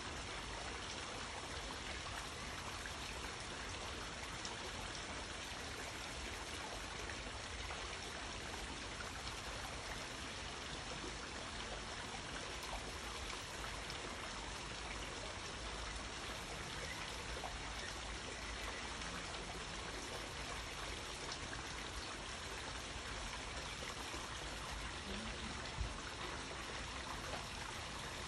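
Steady rushing noise of running water, with one soft knock near the end.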